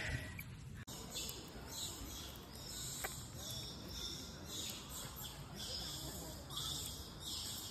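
Outdoor ambience: high-pitched chirping that comes and goes in short patches about once a second, over a steady low rumble, with a sudden break a little under a second in.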